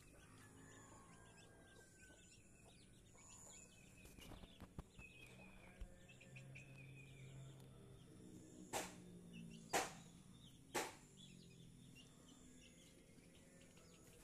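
Near-quiet yard ambience with faint bird chirps, broken a little past the middle by three sharp clicks about a second apart.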